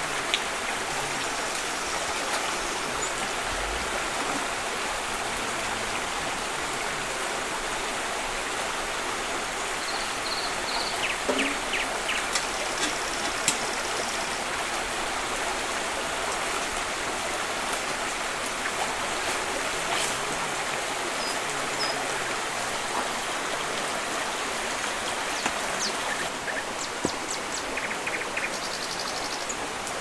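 Shallow rocky stream running steadily over stones, with a few splashes and knocks scattered through it from bare feet wading in the water.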